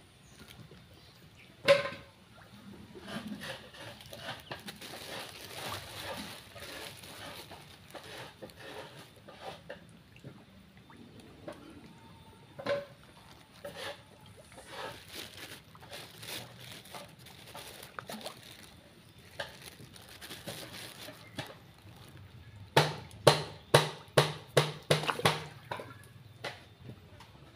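Water sloshing and splashing, with scattered clicks and knocks. Near the end comes a quick run of about ten sharp, loud knocks.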